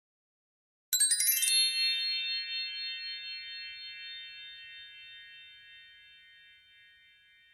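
A metal chime struck, with a quick shimmer of high notes, then rings on several steady tones and slowly fades out over about six seconds.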